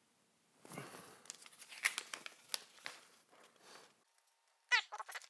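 A paper instruction booklet being opened and unfolded by hand, crinkling and rustling, then two short high-pitched calls near the end.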